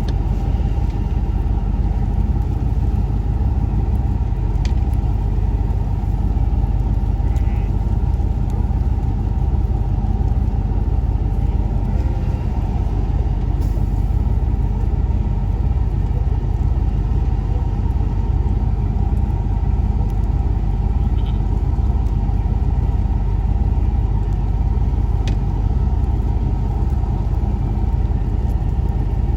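Pickup truck being driven, its engine and running gear making a steady low rumble.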